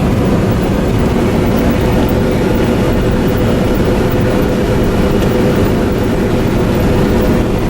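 Combine harvester running steadily while harvesting wheat, heard from inside the cab as a loud, even machine drone with a steady hum.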